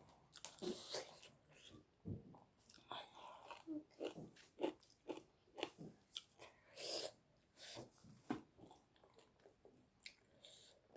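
A person chewing and biting food close to the microphone, in many short, irregular sounds.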